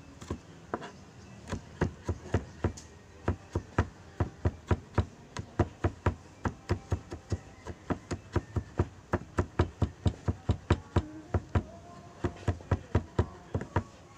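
Kitchen knife mincing garlic on a plastic cutting board: quick, regular knocks of the blade striking the board, about three to four a second, with a couple of short pauses.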